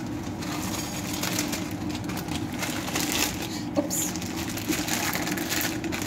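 Block of instant noodles sizzling and crackling in a hot pot on a gas stove, with a steady low hum underneath.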